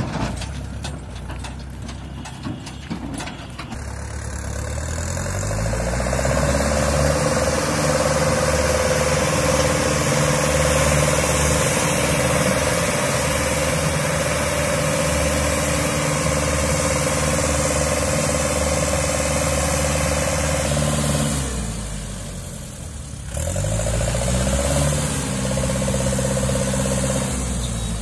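Mahindra 595 DI tractor's diesel engine revving up and running hard under load as it tries to drag a loaded trolley out of deep mud. The revs climb a few seconds in, hold high and steady, fall away about three-quarters of the way through, then climb again.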